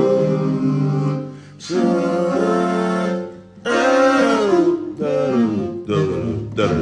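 Vocoder singing: a voice sung through a keyboard vocoder, coming out as sustained chords, in several phrases broken by short pauses.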